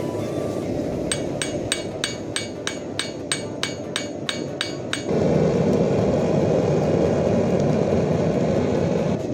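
Hammer blows on 2 mm sheet metal being forged: about a dozen sharp, ringing strikes at about three a second, over a steady low roar. The strikes stop about five seconds in, and the roar gets louder.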